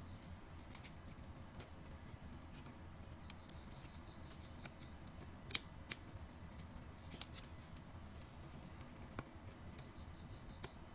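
Faint small plastic clicks and snaps from a Lenovo ThinkPad Yoga 260 keyboard as a metal pry tool levers the Home keycap off its scissor-clip retainer, with two sharper snaps about halfway through as the cap comes free.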